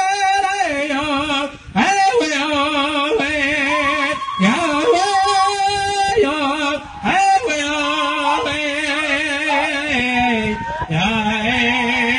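A man singing a Lakota Tokala Okolakiciye (Kit Fox Society) song: phrases of long held notes that waver and step in pitch, with short pauses between phrases.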